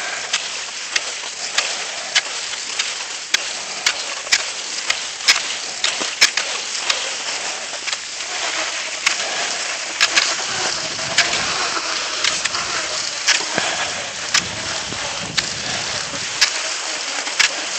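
Cross-country skis gliding on groomed snow, a steady hiss with a sharp click about once a second.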